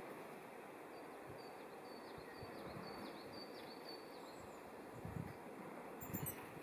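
A small wild bird calling faintly: a quick run of about ten short, high chirps, some dropping in pitch, lasting a few seconds. A couple of soft low thumps follow near the end.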